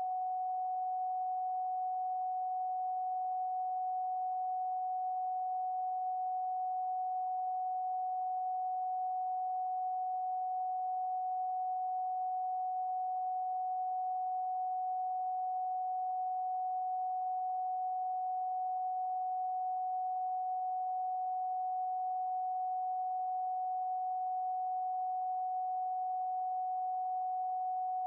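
Steady electronic sine-wave tone, a so-called protection frequency, held unchanging at a single mid pitch, with a faint high-pitched tone above it.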